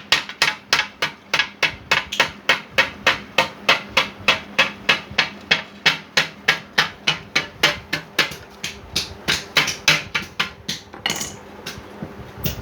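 A hammer striking in a rapid, steady rhythm of about three to four blows a second, pausing briefly near the end.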